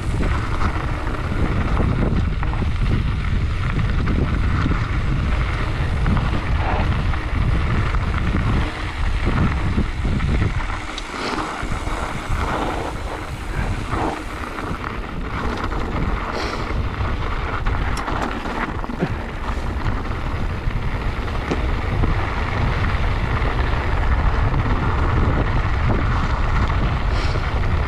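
Wind buffeting the microphone on a mountain bike going fast downhill, with a constant low rush and the tyres and frame rattling over a rocky trail in short knocks.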